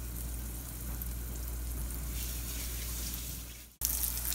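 Breaded green tomato slices sizzling in hot vegetable oil in a cast-iron skillet, a steady hiss. It drops out for a moment near the end and comes back louder and more crackly.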